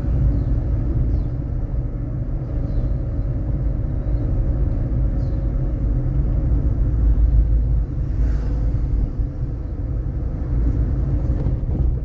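Car interior noise while driving: a steady low rumble of engine and tyres on the road, heard from inside the cabin.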